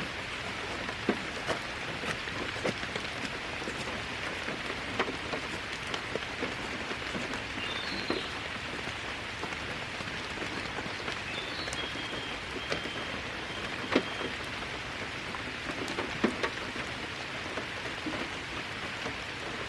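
Steady rain falling, with scattered louder drops ticking sharply on nearby surfaces. A faint high chirp sounds about eight seconds in and again around twelve seconds.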